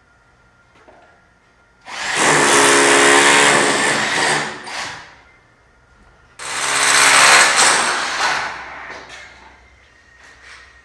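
Electric power tool run twice under load, each run lasting about two seconds, with a pause between them, and a few light knocks afterwards.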